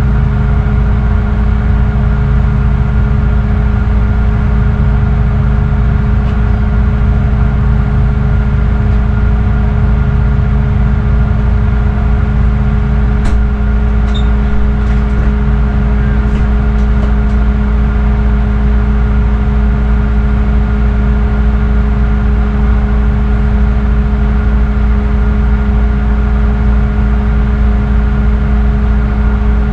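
Tugboat's diesel engines running steadily under load, a constant low drone with a steady hum in it.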